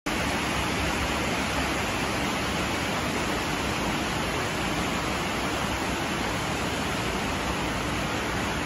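Heavy storm rain falling: a steady, even hiss.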